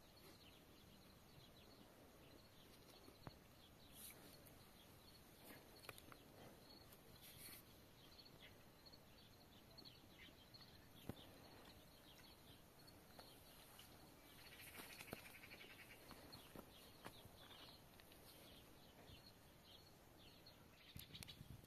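Near silence: faint outdoor ambience with scattered faint bird chirps and a few small clicks.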